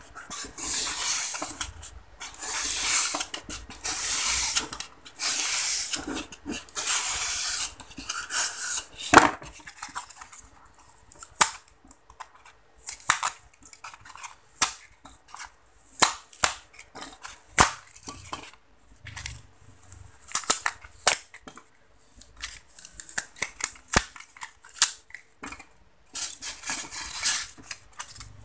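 Styrofoam being broken and torn apart by hand. For the first several seconds there are long scratchy, squeaky rubs, then a run of sharp snaps and crackles as pieces break off, and the scratchy rubbing returns near the end.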